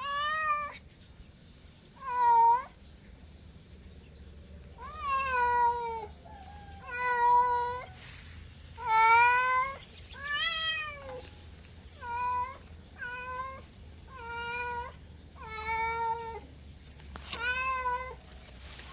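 A cat meowing over and over: about eleven separate meows, each under a second long, coming every one to two seconds.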